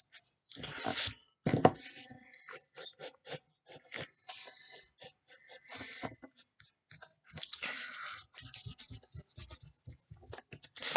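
Drawing strokes on paper, close to the microphone: a run of short, irregular scratches with a few longer strokes, one of them sharper and louder about a second and a half in.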